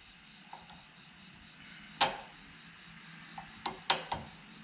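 Metal clicks of a snap ring being fitted with snap-ring pliers onto the spindle above a Makita angle grinder's new bevel gear: one sharp click about two seconds in, then a quick run of lighter clicks near the end.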